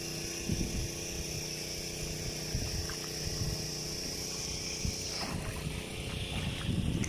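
Kayak out on a river: low water and paddle-handling knocks over a steady low hum, with a high steady drone that cuts off about five seconds in.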